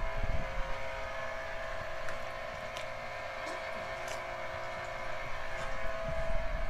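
Electric tomato strainer's motor running with a steady hum, with a few low thumps near the start and end.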